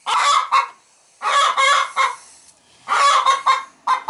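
Barred hen in a nest box squawking and clucking loudly in harsh bursts. Each burst is a few quick pulses, repeating about every second and a half.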